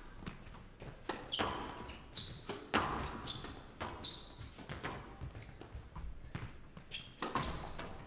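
Squash rally: the ball cracks off rackets and court walls about once a second, with short high squeaks of court shoes on the floor between the shots.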